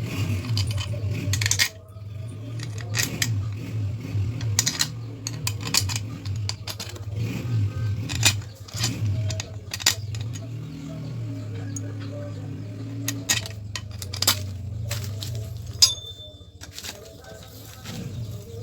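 Small metal engine parts and hand tools clinking and tapping irregularly, over a steady low hum.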